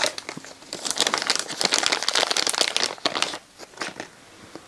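Plastic crinkling and clicking while a CD player's laser pickup mechanism is handled: a dense crackle of fine clicks for about three seconds, then a few separate clicks.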